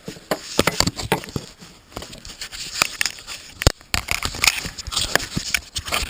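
Close, irregular rustling, scraping and clicking of things being handled right by the microphone, with one sharp click a little past halfway.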